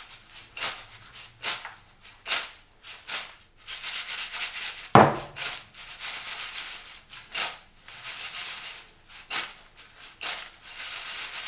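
Crisp fried potato chips tossed in a clay bowl to coat them in spices, sliding and rattling against the bowl in repeated swishing shakes about once a second, with one louder stroke about five seconds in.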